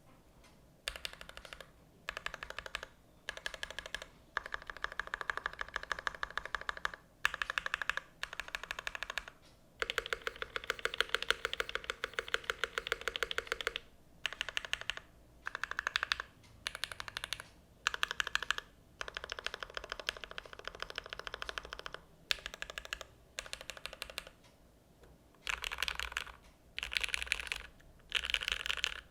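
Custom Velvet Pro mechanical keyboard with aluminium bottom and double O-ring mount, fitted with Gateron X R2 switches and GMK Oblivion keycaps, typed on in fast runs of keystrokes separated by short pauses. The longest run comes near the middle.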